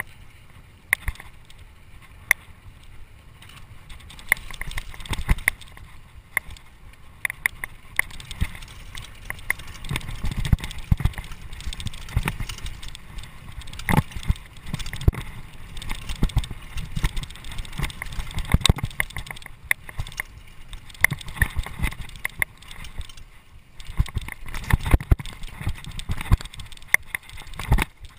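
Mountain bike clattering down a rough dirt singletrack: irregular sharp clicks and knocks as the bike rattles over bumps. Underneath is a low rumble of the tyres on dirt, which grows louder after about four seconds.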